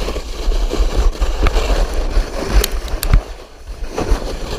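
Sled sliding fast down a snowy slope, snow scraping and hissing under it, with wind rumbling on the microphone. A few sharp knocks from about a second and a half in, the loudest around three seconds.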